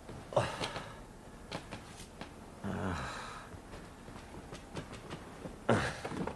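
A man's heavy breaths and a low sigh or groan, three of them: about half a second in, about three seconds in and near the end, with a few soft clicks in between.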